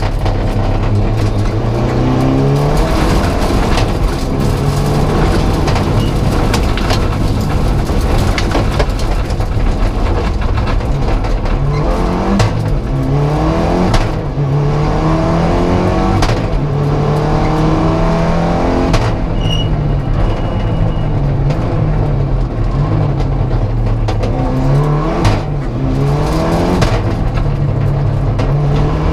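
Mitsubishi Lancer Evo V rally car's turbocharged four-cylinder engine, heard from inside the cabin at stage pace. The engine pitch repeatedly climbs and drops back as it is driven hard through the gears and lifts for corners, over steady road and tyre noise.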